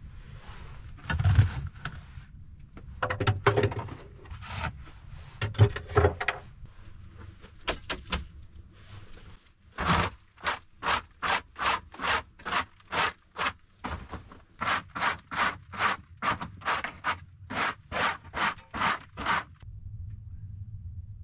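A hand brush sweeping dirt and debris off a bench in quick, even strokes, about three a second, with a short pause partway through. Before that come irregular scraping and knocking as things are moved about.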